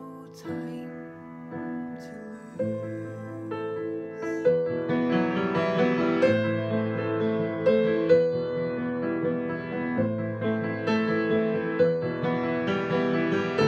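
Digital piano playing an instrumental passage of a slow ballad: sparse held notes at first, filling out into fuller, louder chords about four seconds in.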